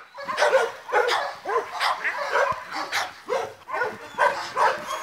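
Dog barking over and over, about two or three barks a second.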